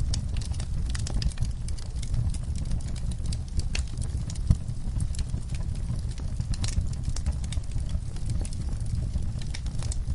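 Wood fire crackling, with many small irregular pops over a steady low rumble of burning, and one louder pop about halfway through.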